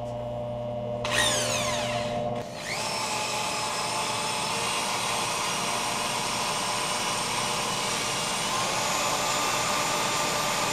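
A handheld power sander running steadily as it sands a black walnut bowl with 60-grit paper. Just after a second in, a falling whine is heard as something spins down; at about two and a half seconds a motor spins up and then runs steadily.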